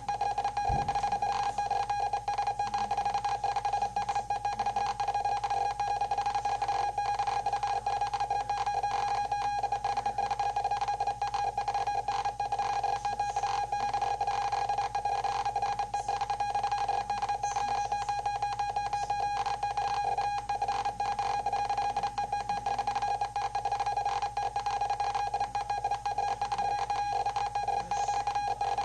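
Radioteletype (RTTY) signal played back from a cassette tape: one continuous, steady keyed tone with a fast flicker as the data is sent at 60 words per minute.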